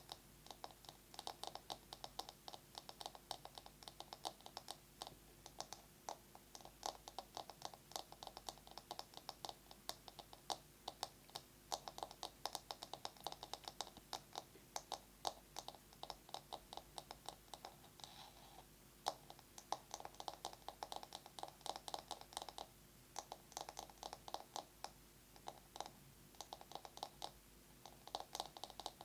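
Fast fingernail tapping on a bamboo massage brush: rapid runs of light clicks in flurries, with brief pauses between them.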